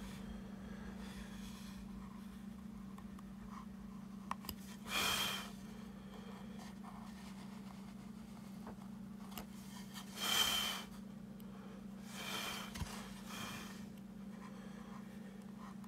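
A steady low electrical hum, with four soft, short rustling sounds and a few faint clicks.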